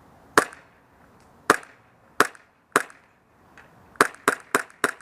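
Short-stroked Tokyo Marui Glock 17 gas blowback airsoft pistol on propane, firing sharp shots with the slide cycling. Four shots come at uneven intervals, then, about four seconds in, a quick string of four about a quarter second apart.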